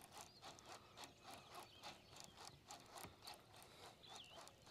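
Faint, even ticking of a baitcasting reel being cranked, about five ticks a second, as a swimbait is retrieved. A couple of faint bird chirps.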